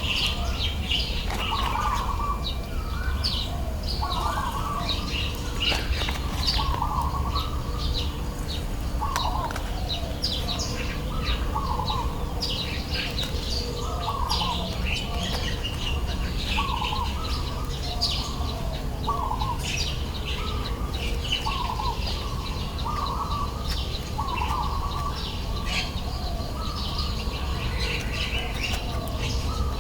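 Birds calling: one short call repeats about every second, with many higher chirps over it and a steady low rumble underneath.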